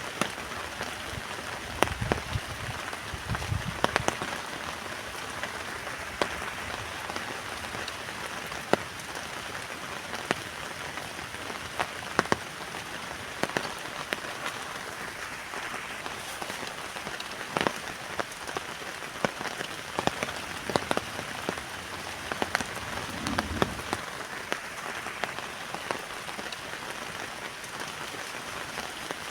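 Heavy rain pattering steadily on a tent, with many single drops landing as sharp taps. A couple of brief low rumbles come through, once early on and once near the end.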